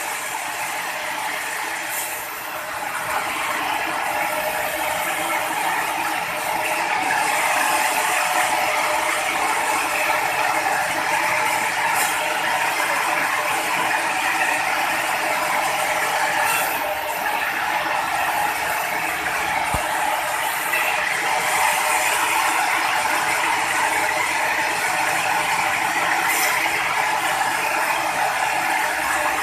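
Sawmill machinery running steadily, a dense mechanical noise that grows a little louder about three seconds in and then holds.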